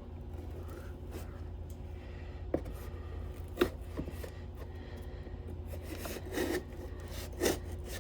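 Pocket knife cutting open a cardboard box: a few sharp knocks around the middle, then short scraping strokes of the blade on cardboard near the end, over a steady low hum.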